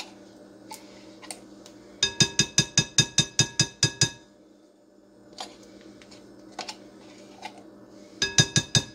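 An open tin can of sweetened condensed milk knocked and scraped to free the thick milk stuck inside: two runs of quick ringing taps, about seven a second, the first lasting about two seconds and the second starting near the end, with a few single clinks between.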